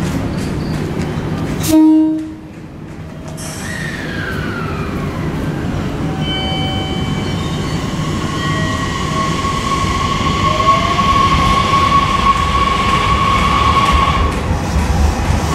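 JR Kyushu 813 series electric train giving one short horn blast about two seconds in, then pulling away. As it picks up speed, its traction motors whine in several gliding tones and the sound grows louder toward the end.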